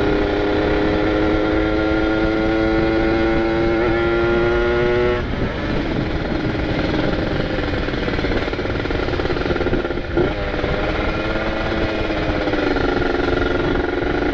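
Kawasaki Ninja 150 RR's ported single-cylinder two-stroke engine pulling on the road, revs climbing steadily under light throttle for about five seconds, then dropping sharply and running on at steadier, lower revs. The engine is being run in after a rebuild, on a carburettor setting the rider calls still rich.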